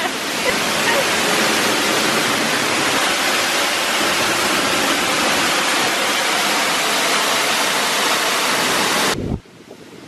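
Henrhyd Falls, a 90-foot waterfall, heard from right beside its falling water: a loud, steady rush that stops abruptly near the end.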